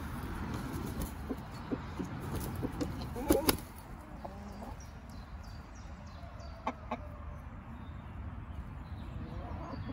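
Splash Brahma chickens clucking softly over a low steady rumble, with a short loud burst of sharp clicks about three and a half seconds in and two fainter clicks near seven seconds.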